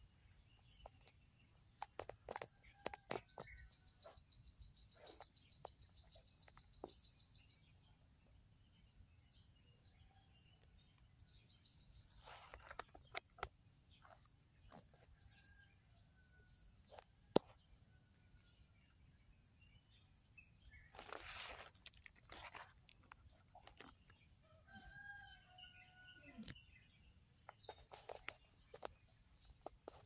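Faint backyard chickens: a rooster crows once, about twenty-five seconds in, among soft clucks. Scattered clicks and rustles run through it, and a fast pulsing trill sounds from about two to seven seconds in.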